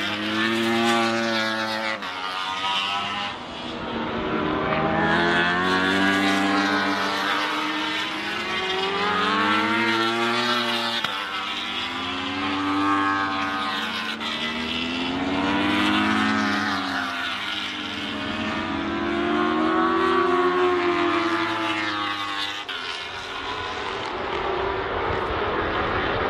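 Yamaha R1 superbikes' crossplane inline-four engines at racing revs, one bike after another going by, each engine note rising and falling in pitch, about eight passes in all.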